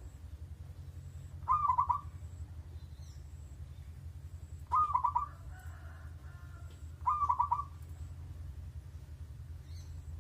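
A bird calling three times, each call a short run of quick notes a few seconds apart, over a steady low hum.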